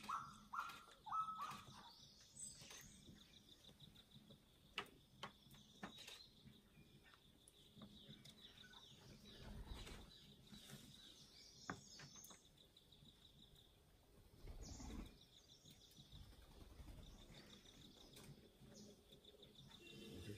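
Faint wild bird chirps over a steady, high pulsed insect trill, near silence overall, with a short run of repeated calls in the first second or so.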